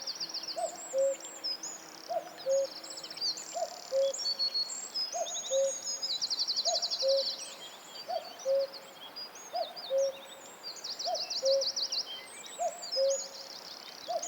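A chorus of forest birds: a low two-note hooting call, a short rising note followed by a lower one, repeats evenly about every one and a half seconds, while several smaller birds keep up high-pitched chirps, rapid trills and warbling song over it.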